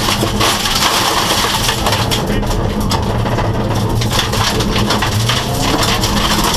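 Subaru rally car's flat-four engine running hard under load, heard from inside the cabin, with gravel and stones clattering against the underside.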